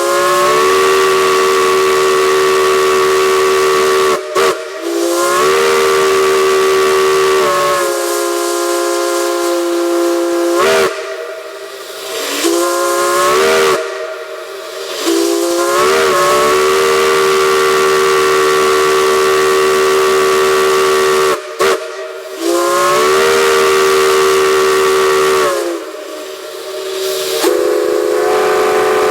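Steam chime whistles sounding a series of long blasts, each several seconds long, with hissing steam. Each blast is a chord of several steady tones that slides up in pitch as it opens, and the chord changes from one blast to the next. There are short breaks between blasts about four, eleven, fourteen, twenty-one and twenty-six seconds in.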